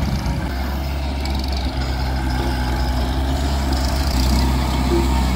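Diesel tractor engine running steadily under load as a tractor hauls a loaded trailer of earth, growing a little louder near the end as it comes close.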